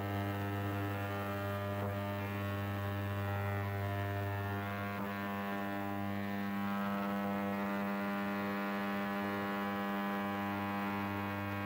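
Ultrasonic cleaner running with pocket-watch parts in a glass dish of cleaning fluid: a steady electrical hum with a buzzy stack of overtones.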